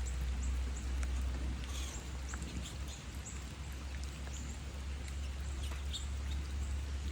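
Birds giving short, faint high chirps, scattered irregularly over a steady low hum.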